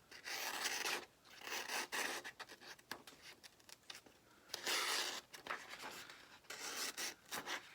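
A freshly sharpened CPM 154 steel knife drawn through a cut test: several separate scratchy, hissing slicing strokes, each under a second long, with light clicks between them.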